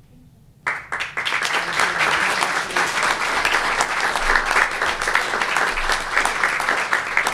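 Audience applause: many people clapping, starting suddenly just under a second in and carrying on as a dense, even clatter.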